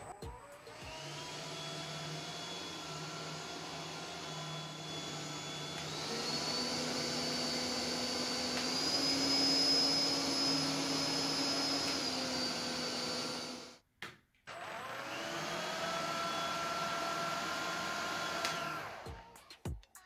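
Philips SpeedPro Max cordless stick vacuum running with a whine that rises as its motor spins up. About six seconds in it steps up to a higher, louder speed, then drops back. It switches off, starts again with another rising whine, and winds down near the end.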